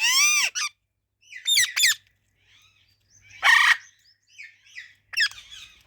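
Pet parrots calling: a loud, harsh screech at the start and another in the middle, short sharp calls in between, and softer chattering near the end.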